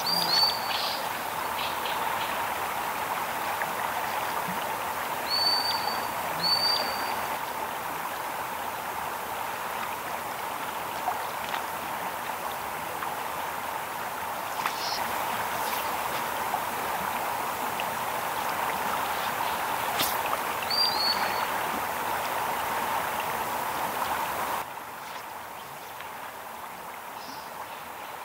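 River rapids rushing steadily, with a few short high bird chirps over them; the rushing drops suddenly to a quieter level near the end.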